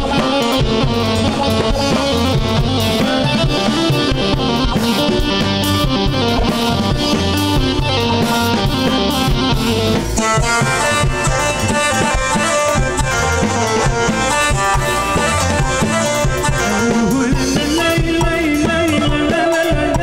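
Live band playing an Arabic pop song over a steady beat from a drum kit, with guitar; the sound grows brighter about ten seconds in.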